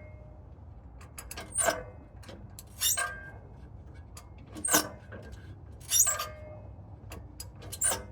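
About half a dozen sharp metallic clinks and scrapes at irregular intervals: a hand wrench and socket working a rusted, seized exhaust flange nut back and forth a little at a time.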